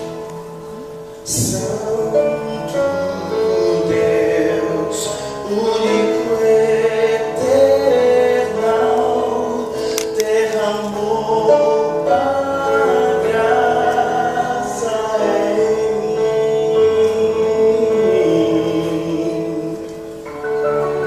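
Gospel choir singing with instrumental accompaniment, joined by a sharp hit about a second in.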